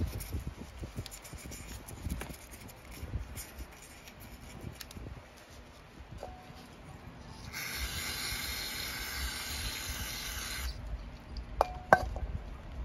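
Brush scrubbing the inside of a small metal carburetor float bowl in irregular rubbing strokes, then about three seconds of steady spray hiss, then two sharp metallic clinks near the end.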